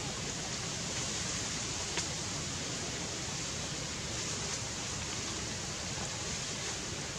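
Steady, even hiss of outdoor background noise, with a faint click about two seconds in.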